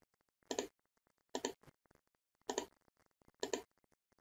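Computer mouse clicking four times, about a second apart. Each click is a quick double tick of button press and release.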